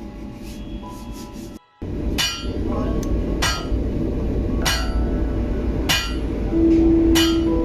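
Hammer blows on metal, six strikes at slightly uneven intervals of roughly a second, each ringing briefly after impact. They begin about two seconds in, after a brief dropout.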